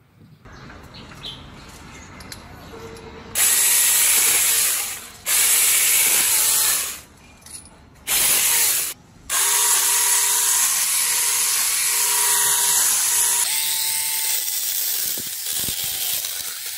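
Battery-powered mini chainsaws running in several bursts, the motor whining and the chain buzzing as it cuts through branches and bamboo, switched on and off with short pauses between.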